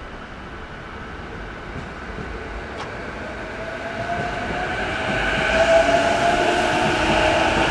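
JR Freight EH500 electric locomotive hauling a container freight train, approaching and growing steadily louder, with a whining tone over the rumble that strengthens from about four seconds in.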